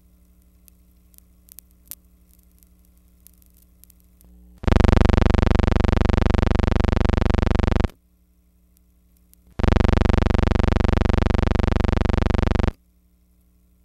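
A loud, steady buzz at one unchanging pitch, heard twice for about three seconds each and cut off abruptly, over a faint hum and a few soft clicks.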